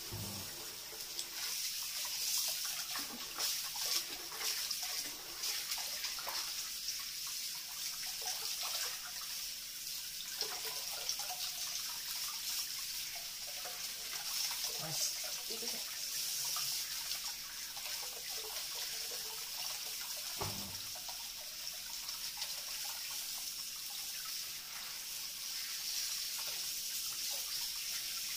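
Tap water running into a washbasin, a steady hiss, with irregular splashing as hands rinse a kitten under the stream.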